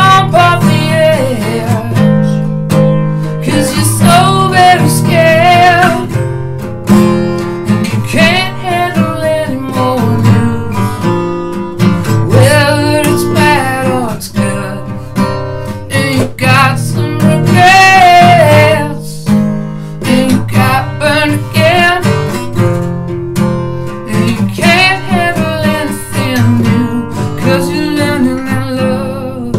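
A man singing with a strummed acoustic guitar.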